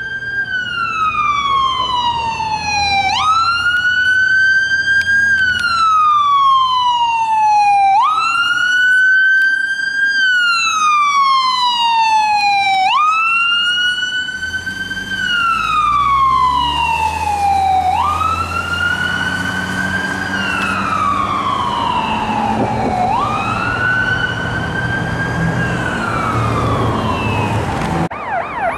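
Emergency vehicle siren sounding in a slow wail, each cycle a quick rise followed by a slow fall, repeating about every five seconds. A vehicle's engine rumble grows louder from about halfway, and near the end a rapid yelping siren takes over.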